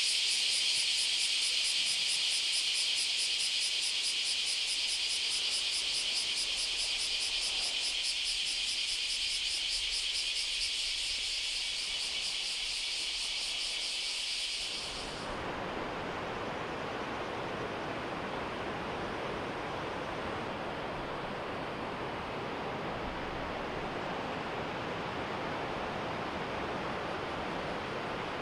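A dense chorus of insects, loud, high and rapidly pulsing, stops abruptly about halfway through. It is replaced by a steady rushing noise.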